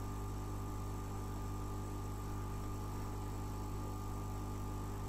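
Hot air rework gun running steadily as it heats a 3.3 V regulator on a TV board to desolder it: a constant electric hum with an airy hiss.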